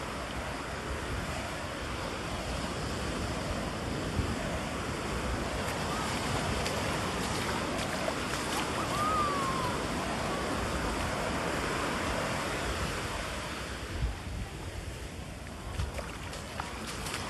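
Ocean surf breaking and washing up a sandy beach, a steady rush that swells through the middle and eases near the end, with a couple of low thuds toward the end.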